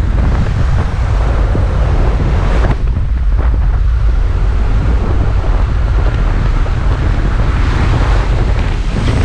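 Loud, steady rush of wind through the open door of a small propeller jump plane in flight, with the engine running underneath, buffeting a helmet camera's microphone.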